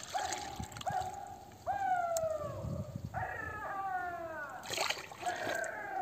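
An animal calling over and over, each call a short tone that falls in pitch, while liquid is poured from a bottle into a small plastic cup.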